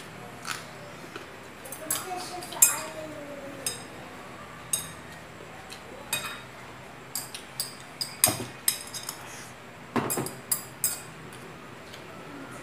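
Metal chopsticks clicking and clinking against a glass bowl as rice is picked up: scattered sharp clicks, with a quick run of them in the second half.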